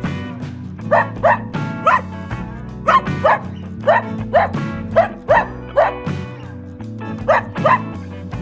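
A dog barking, about a dozen short barks, often in quick pairs, over background music with steady held notes.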